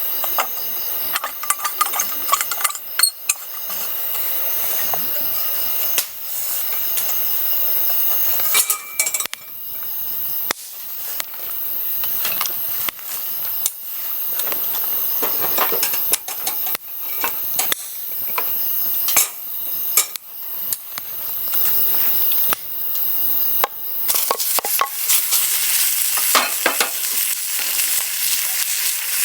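Food sizzling as it is stir-fried in a pan, with a utensil scraping and clacking against the metal in repeated strokes. The sizzle grows louder and denser near the end.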